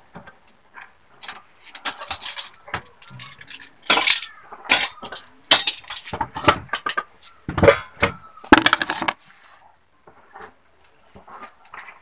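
Kitchen dishes and utensils clinking and knocking as they are handled at a worktable. The knocks are sharp and irregular, come in a busy flurry through the middle, and thin out to a few faint ones near the end.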